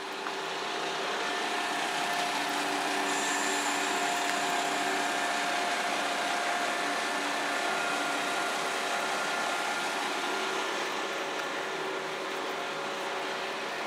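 A London Midland Class 172 Turbostar diesel multiple unit running: a steady rush of noise with several steady humming and whining tones held through it, growing louder over the first couple of seconds and then staying level.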